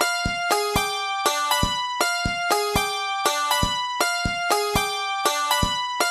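Instrumental music: a short phrase of bright pitched notes over a low beat, looping about every two seconds.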